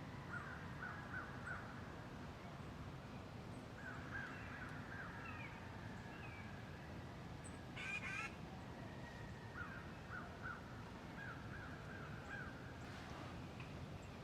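Faint bird calls: several runs of quick short notes, each run lasting about a second, over a steady low background rumble. A louder, brief burst of sound comes about eight seconds in.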